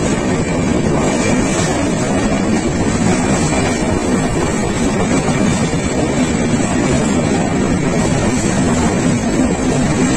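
Steady, loud running noise of a moving passenger train heard from its open window: the rumble of wheels on rail and air rushing past. A second train runs alongside on the next track.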